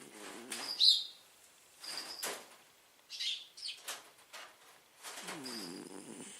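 A sleeping pet snoring in uneven breaths, with short high squeaky whistles and snuffles between the snores and a longer wavering snore near the end.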